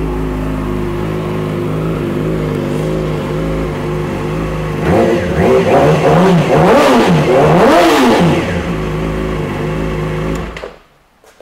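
2008 Yamaha YZF-R6's 600 cc inline-four idling, revved up twice in quick succession, then settling back to idle. It shuts off suddenly near the end as the ignition key is turned.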